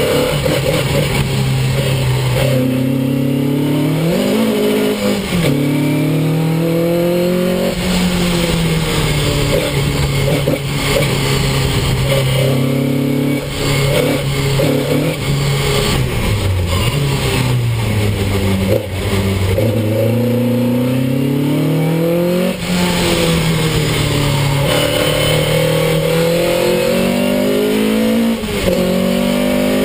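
Ford Anglia special saloon race car's engine heard from inside its cabin at race pace. The pitch climbs under acceleration and drops sharply at each gear change, with longer falls under braking into corners, over and over.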